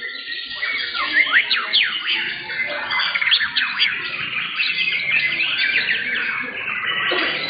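Murai batu (white-rumped shama) singing in fast, varied whistled phrases with quick rising and falling notes.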